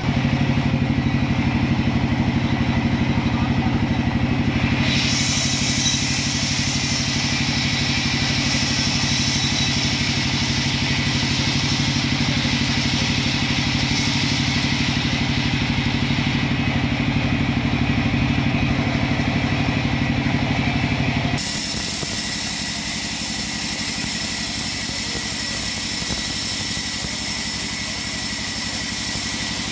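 Sawmill machine running steadily with a low engine-like hum. A higher hiss joins about five seconds in, and about twenty-one seconds in the hum drops away abruptly, leaving the hiss.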